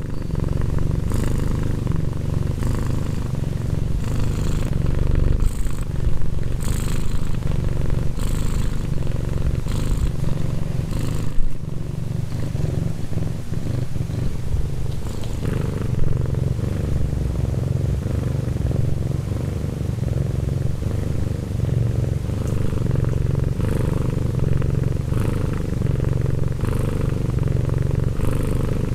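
Tabby domestic cat purring: a steady low rumble that pulses regularly, about every second and a half.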